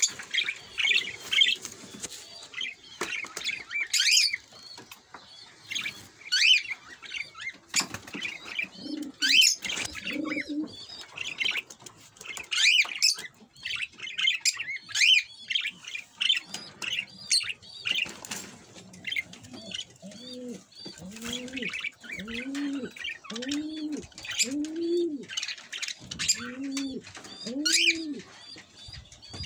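Caged small parrots (budgerigars, cockatiels and a lovebird) chirping and chattering throughout in quick high calls. From about two-thirds of the way in, a dove joins with a series of low, evenly spaced coos, about one a second.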